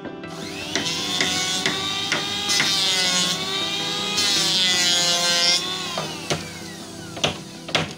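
Handheld electric circular saw spinning up and cutting through plywood, its whine sagging and wavering in pitch under load, then winding down about six seconds in.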